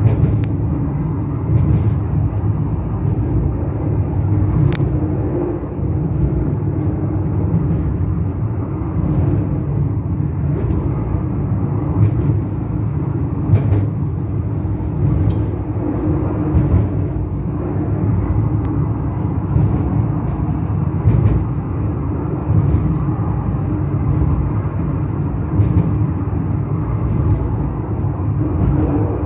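Funicular car running downhill on its rails: a steady low rumble with a faint hum and scattered sharp clicks.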